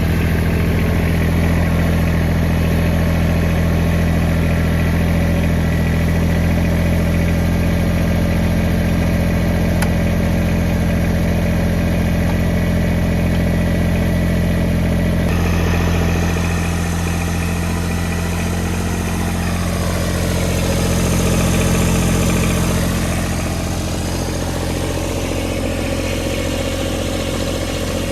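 Kubota BX24 compact tractor's three-cylinder diesel engine idling steadily just after starting. About two-thirds of the way through, the engine note shifts and swells briefly before settling a little quieter.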